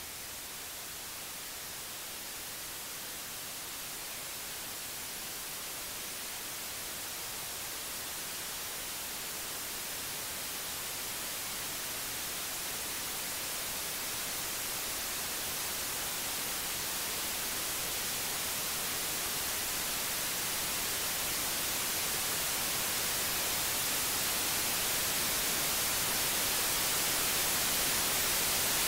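Electronic static: a steady hiss of white noise, strongest in the high end, that grows slowly and evenly louder.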